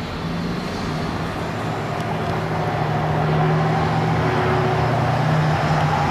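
A motor vehicle's engine running with a steady low hum over traffic noise, slowly growing louder.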